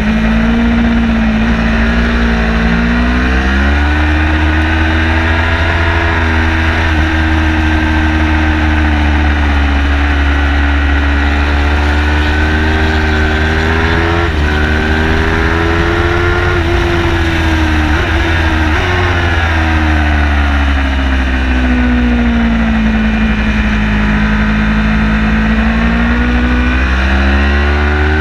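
Car engine driven hard through a track lap, its note falling and rising over several seconds at a time as it slows for corners and accelerates out, with quick gear changes about halfway through. A steady, heavy low rumble runs underneath.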